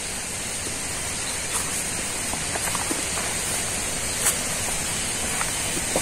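A man eating rice by hand, chewing with faint clicks and lip smacks, the sharpest about four seconds in, over a steady rain-like hiss.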